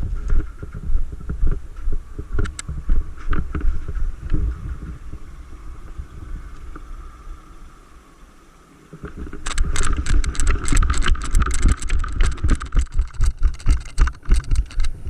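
Footsteps and gear handling noise knocking against a body-worn camera, with dull thumps about two to three a second. They ease off and briefly stop about eight seconds in, then pick up again, busier and louder.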